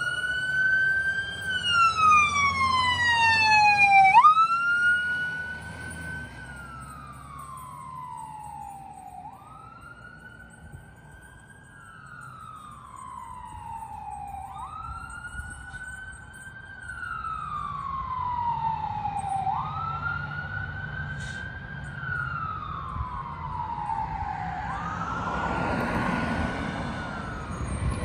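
Fire rescue truck's siren wailing, sweeping quickly up and then slowly down, about once every five seconds. It grows fainter after the first few seconds and louder again later, and a rushing noise swells in near the end.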